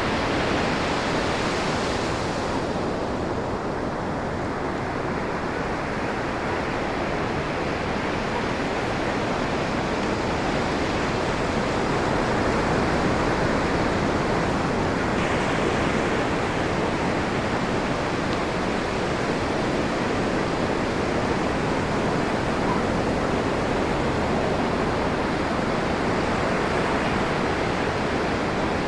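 Ocean surf breaking and washing up a pebble beach, a continuous rushing noise. The higher hiss of water running over the stones fades about two seconds in and swells back around fifteen seconds.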